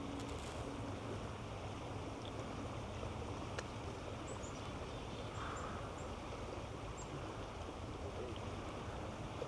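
Steady rush of flowing river water, with a few faint high chirps scattered through it.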